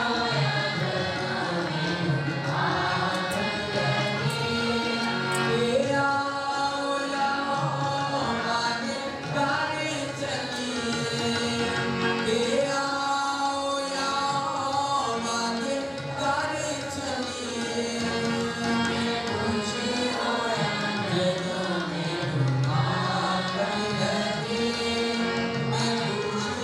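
A devotional hymn sung by a group of voices with instrumental accompaniment, running steadily throughout.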